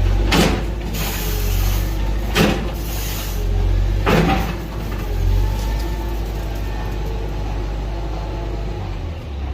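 Heavy diesel construction machinery running with a steady low rumble, with three short sharp hisses in the first four seconds or so.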